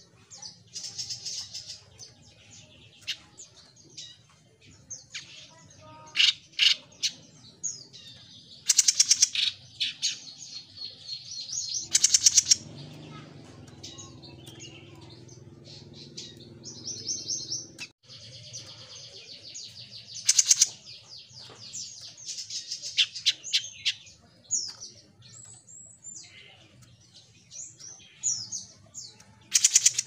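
A caged jenggot mini, a small rufous-brown songbird, singing busily in bursts of fast, high chirps and trilled phrases. A few very loud, sharp notes stand out, about a third of the way in, two-thirds of the way in and at the end. A faint low hum sits under the song for a few seconds in the middle.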